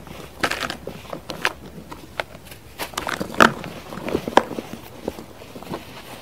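Packed baking-soda cups being crushed and crumbled by hand: a run of irregular soft crunches and crackles, the sharpest about three and a half seconds in.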